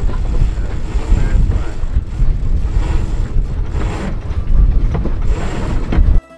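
Strong wind buffeting the microphone on a sailboat under sail in about 23 knots of wind: a loud, steady low rumble with rushing air and a few sharper surges. It cuts off suddenly just before the end.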